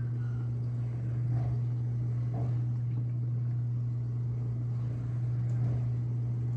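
A steady low machine hum at one unchanging pitch, with a few faint knocks and clicks over it.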